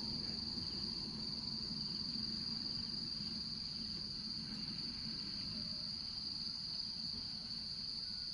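Insects chirring in a steady, unbroken high drone over a low background rumble.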